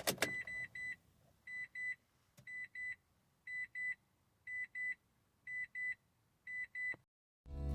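Mitsubishi i-MiEV's warning chime sounding a repeating double beep, about one pair a second, while the car refuses to start with fault code P1A15. A sharp click comes at the very start.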